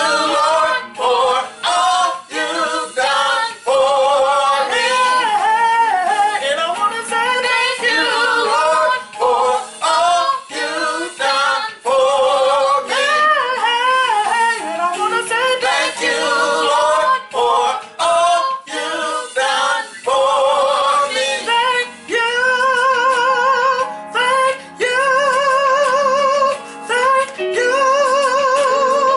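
Three voices, a woman and two men, singing a worship song together, with wide vibrato on long held notes in the second half.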